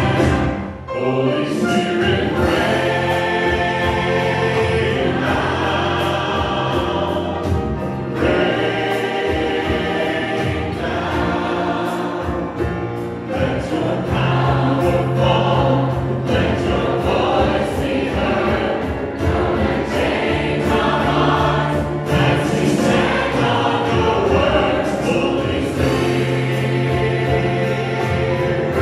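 Church choir and praise band performing a gospel worship song: lead singers and a choir singing together over grand piano, bass guitar and drums, with steady bass notes and a regular drum beat.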